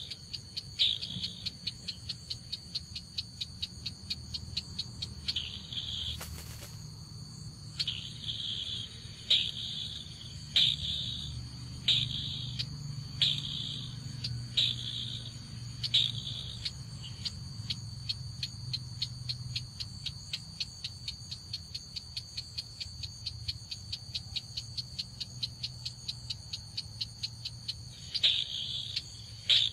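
Ruddy-breasted crake call: a long run of hard ticking notes, about four a second, with louder bursts every second or so, over a steady high whine.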